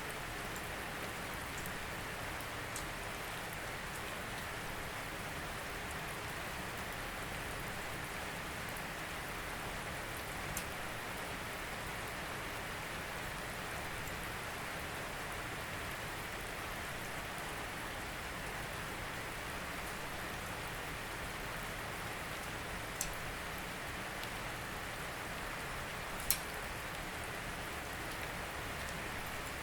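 Steady rain falling, an even patter with a few sharper drip ticks, the loudest about 26 seconds in.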